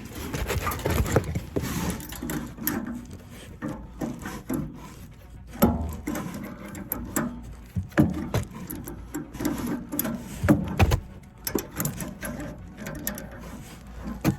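Irregular knocks, clicks and clatter of hands working with tools and metal parts, with several heavier thumps.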